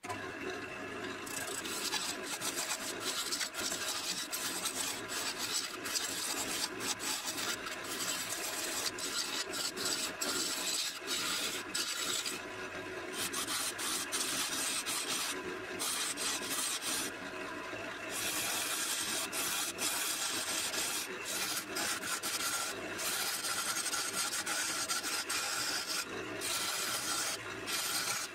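A hand-held turning tool cutting a spinning log of wet, freshly felled elm on a wood lathe: a continuous hissing scrape of steel peeling shavings. The hiss lets up briefly a few times.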